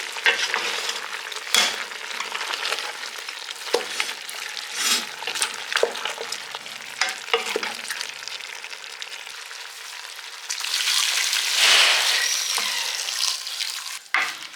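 Goat meat and beef sizzling in a pot on the heat, with pomo and stockfish just added, and scattered clicks and knocks against the pot. The sizzling swells louder for a couple of seconds about ten seconds in.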